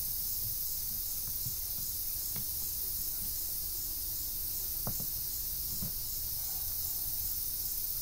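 Steady high-pitched insect chorus with a faint regular pulse, with a few faint knocks from work at the wooden hand baler near the middle.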